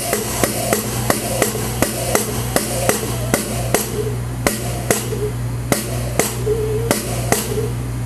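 Background music with a steady drum beat, over a low steady hum.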